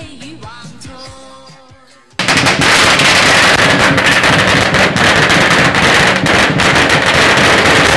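A song fades down, then about two seconds in a long string of Chinese New Year firecrackers goes off, a loud, dense, rapid crackle that keeps going.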